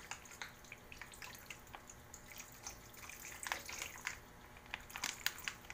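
Soy sauce poured in a thin stream into a pan of simmering pork hock broth: faint trickling with small irregular bubbling pops and drips.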